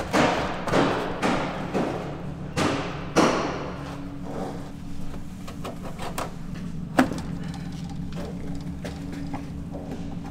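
Car's sheet-metal rear floor pan being struck and pried loose with hand tools: a run of about seven sharp metallic bangs, each ringing briefly, in the first three seconds or so, then one more bang about seven seconds in.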